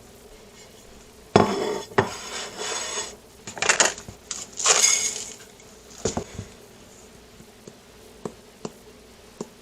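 Dishes and cutlery clattering: a few seconds of clinks and scrapes, then a handful of single light clicks near the end.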